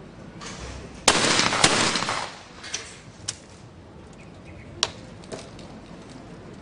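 Twelve-gauge skeet shotgun fired twice about half a second apart, a skeet double, each report ringing out with echo for about a second. A few sharp clicks follow.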